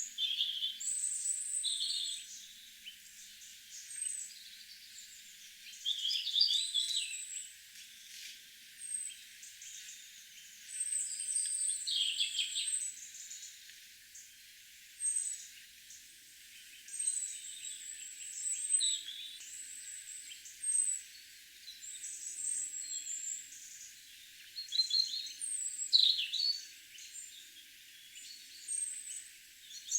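Garden songbirds singing and calling: many short, high chirps and song phrases following one another and sometimes overlapping.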